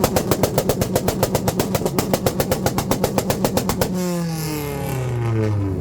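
Honda CRX engine held on a two-step launch limiter, banging out a rapid, even string of pops, about nine a second, for about four seconds. Then the throttle is released and the revs fall back toward idle. Really loud.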